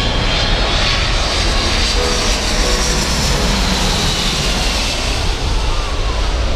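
A US Air Force C-17 Globemaster III's four turbofan jet engines, loud as the transport passes low overhead on final approach. A high whine sits over a heavy rumble, and a tone drops in pitch as the plane goes by.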